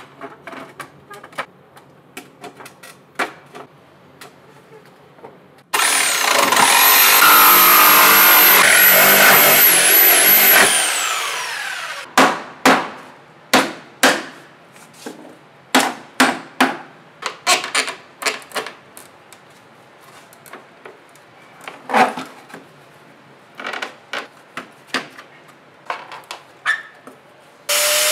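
A power tool with a high whine runs loudly for about five seconds and winds down, followed by a long series of irregular, sharp hammer blows on the wood of a pallet, knocking its boards loose. Just before the end an angle grinder starts up.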